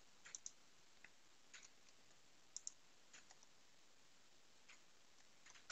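Near silence broken by faint, scattered computer mouse clicks, several of them in quick pairs.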